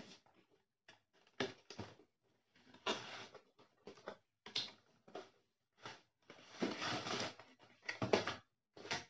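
Cardboard packaging being handled and opened by hand: irregular rustling and scraping of cardboard with short taps and clicks as the insert is slid out of the box. Longer scraping stretches come about three seconds in and again around seven seconds in.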